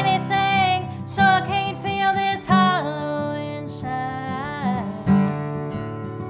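A woman singing a country song over a strummed Troublesome Creek acoustic guitar. The voice stops about five seconds in, leaving the guitar strumming on its own.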